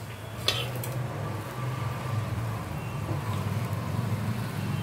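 Urad dal vada frying in hot oil in a kadhai: steady sizzling and bubbling over a low steady rumble, with one short click about half a second in.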